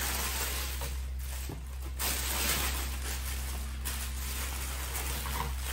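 Honeycomb kraft packing paper and white tissue paper rustling and crinkling as they are pulled apart by hand and unwrapped from boxed plates, with a couple of brief pauses.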